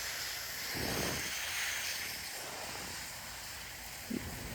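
Water spraying steadily from a garden hose onto a garden bed, a soft even hiss that swells slightly about a second in.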